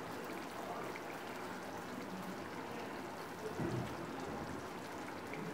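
Chana masala gravy simmering in a kadhai on a gas flame: a steady bubbling hiss, with a soft low thump about three and a half seconds in.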